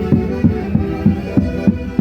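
Andean folk orchestra playing Santiago festival music: a steady drum beat of about three strokes a second under sustained melody notes.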